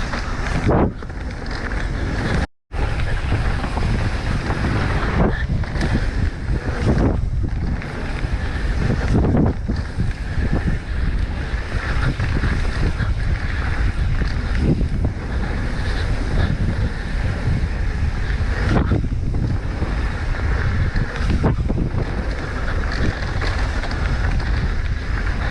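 Wind rushing over the microphone, mixed with tyre and trail noise from a Specialized Enduro mountain bike riding down a bike-park trail. The noise is a steady, rough rush, with a brief dropout about two and a half seconds in.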